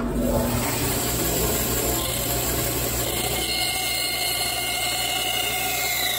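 Bandsaw running steadily, an even mechanical whir with a faint high whine coming in about halfway through.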